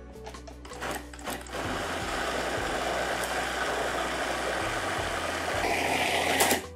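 A few clicks, then a food processor motor blending guacamole with a steady whir for about five seconds before it stops suddenly near the end. This is the final blend after the cilantro and lemon juice go in.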